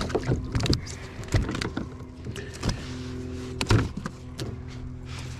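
Electric trolling motor on a kayak humming with a steady low tone that cuts out and comes back a couple of times, with scattered sharp knocks and clicks over it.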